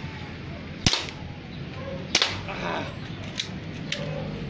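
Gas blowback airsoft pistols (Glock 17) firing: two sharp cracks about a second and a half apart, followed by two fainter clicks.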